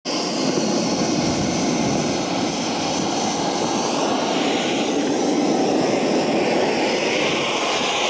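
Radio-controlled model jet's engine running steadily as the model taxis: a thin, high whine over an even rushing noise.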